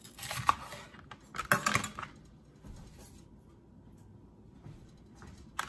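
Kitchen knife cutting through a green bell pepper, the blade knocking on the cutting board a few times in the first two seconds, with one more light click near the end.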